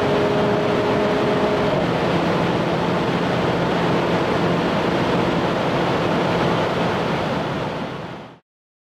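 Renault Clio R.S. Trophy 220's 1.6-litre turbo four-cylinder pulling at over 210 km/h, heard in the cabin under heavy wind and road noise. The engine note drops as the dual-clutch gearbox shifts from fifth to sixth about two seconds in. The sound fades and cuts off near the end.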